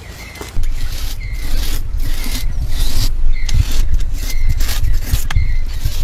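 Hands rubbing and scraping wet clay in quick, repeated strokes, about two a second, suddenly louder from about half a second in. A short high squeak recurs about once a second.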